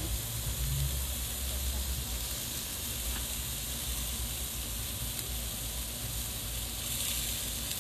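Chicken wings and pork ribs sizzling on a gas grill: a steady hiss with a low rumble underneath.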